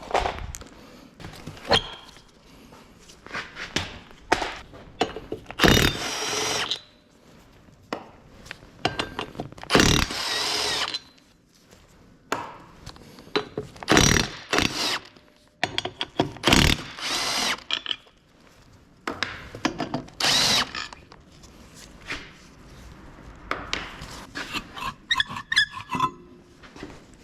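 A power tool run in about half a dozen short bursts of roughly a second each, with knocks of tools being handled in between.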